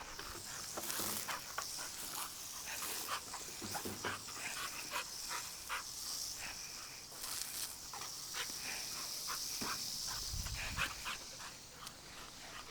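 Dogs moving about, with many short scratching and scuffling sounds over a faint steady high hiss.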